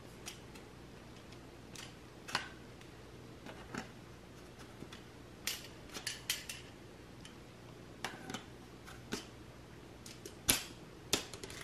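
Faint, scattered clicks and knocks of a Force FX Elite lightsaber's blade being seated and turned in its metal hilt, about a dozen short taps at uneven intervals, the sharpest about ten and a half seconds in.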